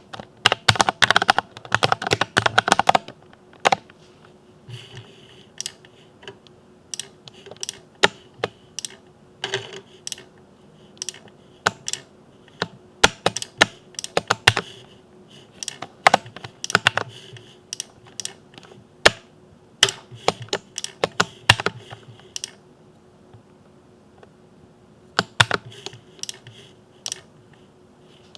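Typing on a Ducky mechanical keyboard with Cherry MX switches: a quick flurry of keystrokes for the first few seconds, then slower, uneven single keystrokes with a short pause near the end. A faint steady hum sits underneath.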